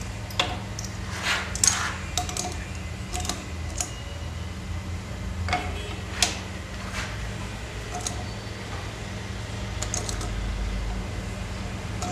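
Metal clinks and knocks of hand tools on a pillar drill's chuck as a tap is fitted and tightened in it with a wrench, scattered irregularly over a steady low hum.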